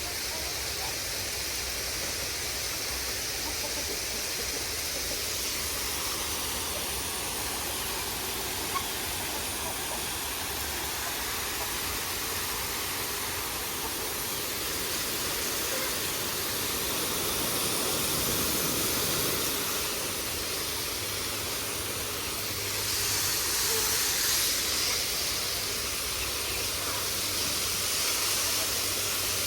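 Water spraying steadily from a garden hose onto plants, an even hiss that grows a little louder and brighter a few seconds before the end.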